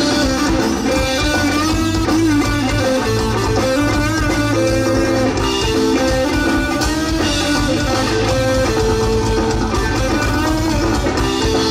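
Live rock band playing an instrumental passage: electric guitar playing melodic lines with bent notes over electric bass and drums.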